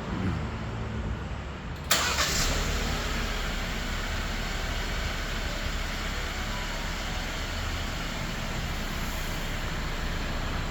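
Jeep Wrangler JL's engine remote-started by three presses of the factory key fob's lock button: it cranks and catches about two seconds in, then idles steadily.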